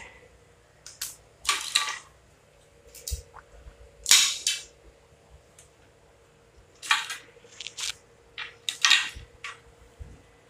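Handling noise from unpacking a three-section surf fishing rod: about eight short, sharp clicks and rustles at uneven gaps, the loudest about four seconds in, over a faint steady hum.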